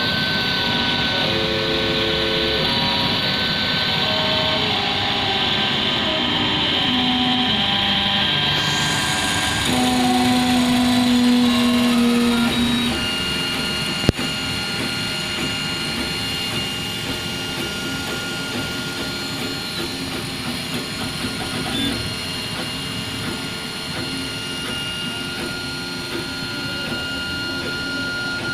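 Large FDM 3D printer running, with its stepper motors whining in steady tones that jump to new pitches as the print head changes moves, over a constant hum of cooling fans. There is one sharp click about halfway through.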